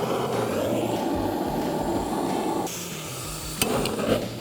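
A wood fire being lit under an iron cauldron: a steady rushing noise of flames catching, which drops off about two and a half seconds in, with a sharp knock a second later.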